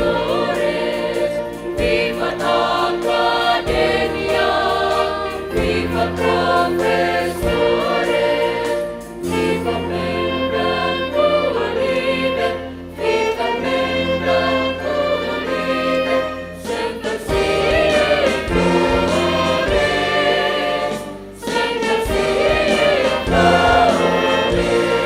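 Choral music: a group of voices singing over instrumental accompaniment with long held bass notes.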